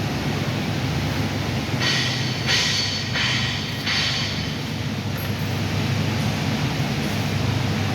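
Steady electrical hum of TIG welding equipment, broken by four short hissing bursts about two to five seconds in.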